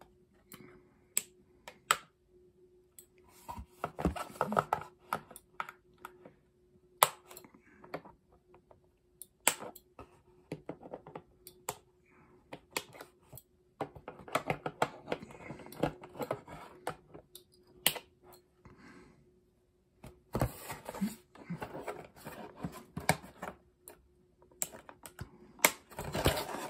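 Irregular clicks, taps and rustling scrapes of a plastic action figure and its cardboard packaging being handled, as the toy is worked free of its box insert.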